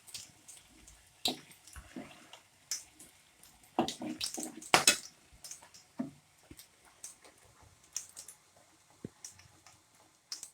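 Sporadic crackles and light clinks of a utensil in a pan of frying pakoda, with a cluster of louder knocks about four to five seconds in.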